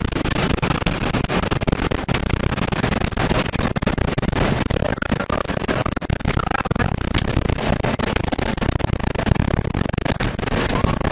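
EF4 tornado wind rushing over an armored tornado intercept vehicle, with a dense, continuous rattle of debris and hail striking its body and windows.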